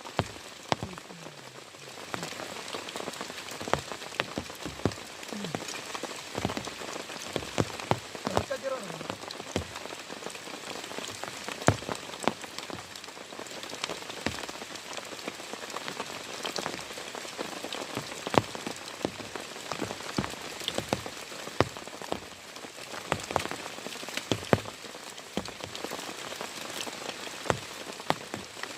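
Heavy rain falling steadily, with many loud single drops striking close by at irregular intervals as sharp taps over the steady hiss.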